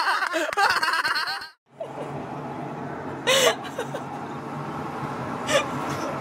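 People laughing hard, with quick rising and falling whoops, cut off abruptly about a second and a half in. This is followed by a steady low hum with one short laugh-like vocal sound a couple of seconds later.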